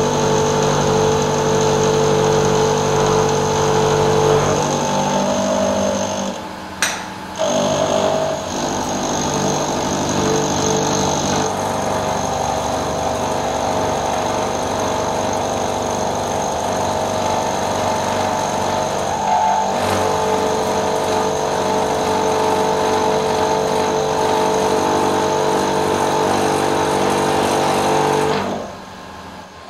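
Manual milling machine running a solid carbide end mill, climb-milling a flat on a steel cylinder blank, a steady machining whine made of several held tones that shows the cutter taking the cut easily. The sound dips briefly with a single click about seven seconds in and falls away sharply just before the end.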